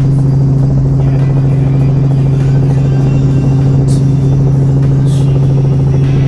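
Robinson R44 helicopter running, a loud, unchanging steady drone.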